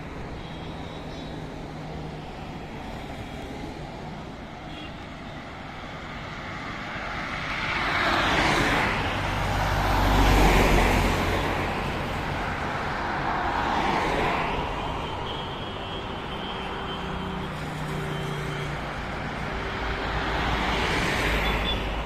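Highway traffic passing close by: a tourist bus, cars and a truck each swell and fade as they go past, with tyre noise on the wet road surface. The loudest pass comes about ten seconds in, and another vehicle is closing in near the end.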